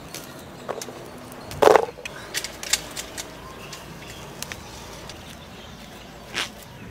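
Rustling leaves and small snaps and clicks as jujube fruit are plucked by hand from a bush, with a louder rustle about a second and a half in and another near the end.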